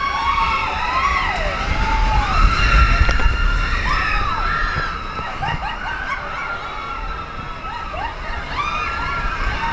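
Roller coaster riders screaming, many voices overlapping in rising-and-falling shrieks, over the low rumble of the coaster train running along its track, loudest about two to three seconds in.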